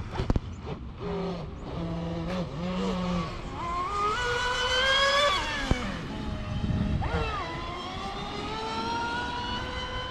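TFL Pursuit RC race boat running flat out on a speed pass: its high motor whine climbs in pitch as it accelerates, drops off suddenly about six seconds in, then climbs again from about seven seconds in.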